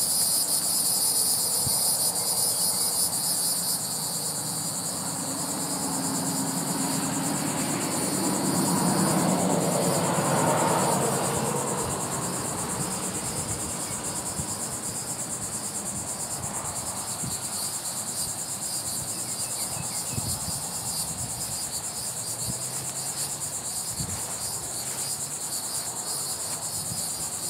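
Steady high-pitched chorus of insects, with a low engine hum underneath that swells and fades about a third of the way in.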